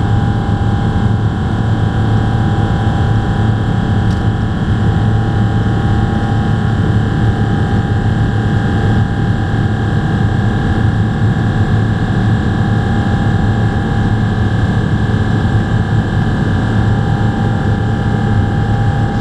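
Cabin noise of a Boeing 777-300ER climbing out after takeoff, heard beside its GE90-115B engine: a steady roar with a deep rumble and several steady whining tones from the engine.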